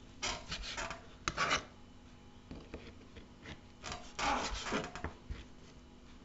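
A large kitchen knife cutting through mutton knuckle on a plastic cutting board: short scraping strokes of the blade through meat against the board. They come in a cluster in the first second and a half, with a sharp knock, and again about four seconds in.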